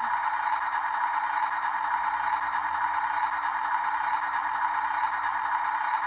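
Small electric motor and gearbox of a radio-controlled toy construction truck running steadily, a rattling whir.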